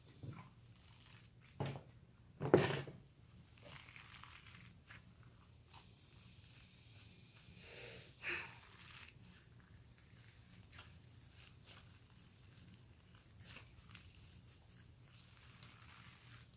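Hands mixing foam soap into slime: faint sticky crackling and squishing, with a sharp knock about two and a half seconds in.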